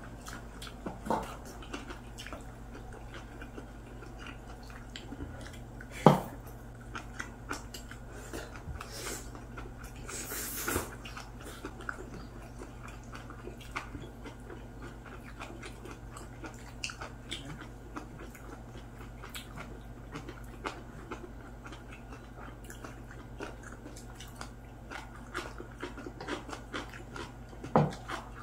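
Two people eating at a table: chewing and mouth sounds, with scattered light clicks of chopsticks against ceramic bowls and one sharper knock about six seconds in. A steady low hum runs underneath.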